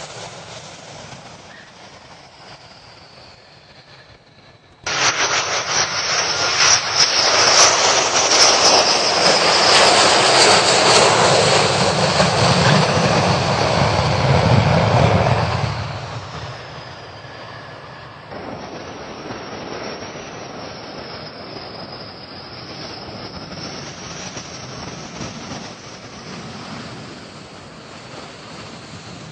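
Jet aircraft engines roaring, cutting in abruptly about five seconds in with a high whine that slowly falls in pitch, then dying down after about eleven seconds to a quieter steady whine.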